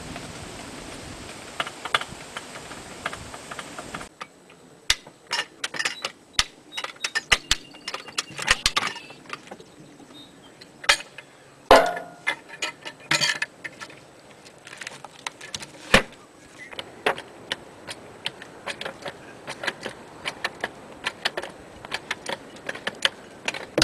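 Irregular metal clicks, clinks and knocks from sawmill log-handling gear being worked by hand, with louder knocks about 12 and 16 seconds in. Wind on the microphone for the first four seconds, then the background drops away abruptly.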